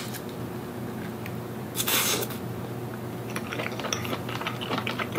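Steamed king crab meat being sucked out of the leg shell, with one loud slurp about two seconds in, then soft chewing.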